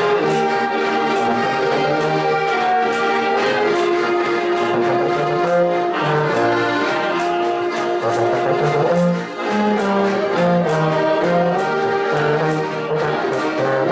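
Austrian folk dance music played live on diatonic button accordions (Steirische Harmonika), clarinet and baritone horn: a moving bass line under sustained melody notes on a steady beat.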